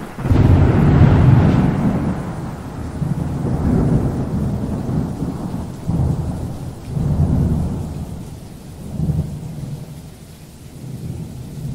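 Thunder: a loud clap about a quarter second in, then a long rolling rumble that swells again several times while slowly fading.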